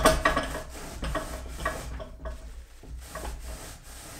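A GTD-350 helicopter gas-turbine engine's turbine wheel, already loose on its shaft, is twisted back and forth by gloved hands. The metal parts rattle, knock and scrape in short irregular strokes, loudest at first.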